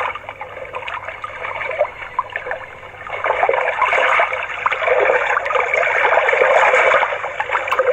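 A trickling, water-like hiss played through the small speaker of an MT138 BT motorcycle alarm and MP3 unit just after it switches to music mode. It grows louder about three seconds in and cuts off sharply at the end.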